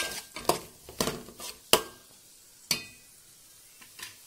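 Spoon stirring chopped tomatoes into fried onion masala in a metal pot: about six sharp knocks and scrapes against the pot, most in the first two seconds and some ringing briefly, over a faint sizzle.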